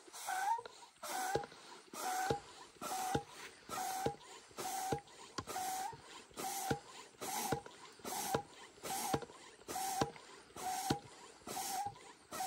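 Hand air pump worked in steady strokes, a little over one a second, each with a short squeak, a rush of air and a knock, inflating the air mattress of a Dometic Pico inflatable swag, which takes air on the down push.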